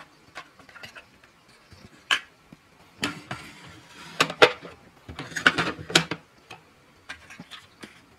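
Small plastic clicks and knocks as miniature toy food boxes are handled on a toy fridge's shelves, the fridge's plastic door is swung shut, and a little cardboard box is set down on the table. The loudest clatter comes in a few clusters through the middle.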